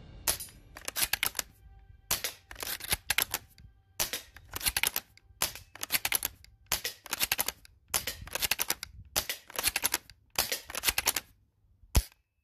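Rapid mechanical clicking from a BO Dynamics airsoft Mosin Nagant spring rifle, in short ratcheting bursts about once a second, then a single sharp shot near the end.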